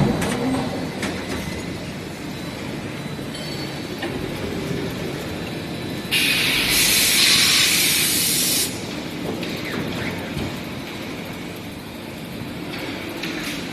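Forging production line machinery running with steady industrial noise. A loud hiss of escaping air or steam starts abruptly about six seconds in, lasts about two and a half seconds and cuts off.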